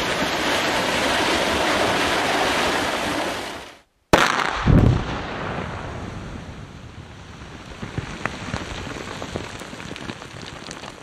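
Steady rushing noise of an open-pit mine blast, with rock and dust falling, fading out about four seconds in. Then a sharp crack and, just over half a second later, a deep boom from an explosive charge going off in a dirt pit, trailing off into a fading rush.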